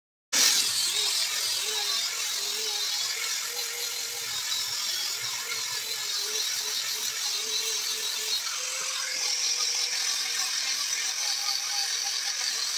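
Handheld angle grinder running steadily, its spinning disc grinding along the face of an old wooden beam, with a steady high hiss over a faint motor whine. It cuts in abruptly about half a second in.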